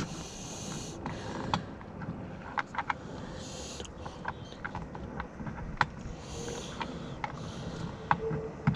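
A T20 Torx screw being turned in by hand into a plastic door trim panel: irregular small clicks and creaks from the screwdriver and the plastic, with a few short scraping sounds.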